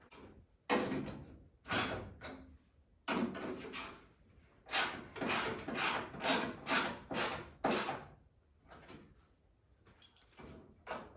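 Knocks and scrapes of hand work fitting a car's rear bumper and its brackets. In the middle is a run of about seven evenly spaced strokes, roughly two a second.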